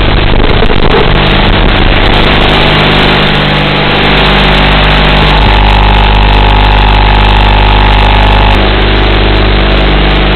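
Loud steady hum and hiss of an FPV drone's onboard audio. A steady higher tone joins in for about three seconds in the middle.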